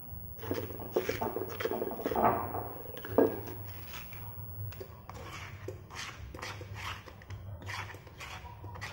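A plastic spatula scraping ground spice paste out of a stone mortar, with a run of knocks and taps against the mortar and pot; the sharpest knock comes about three seconds in. A low steady hum runs underneath.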